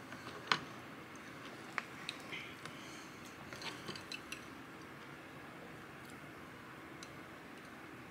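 Light clicks and clinks of a wooden spoon and chopsticks against plastic food containers and bowls while eating, over a steady room hum. The sharpest click comes about half a second in, with a cluster of quicker clicks a little past the middle.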